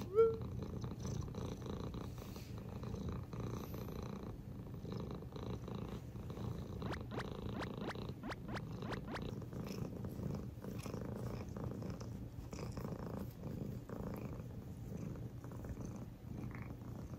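Domestic cat purring steadily, with a brief rising call at the very start.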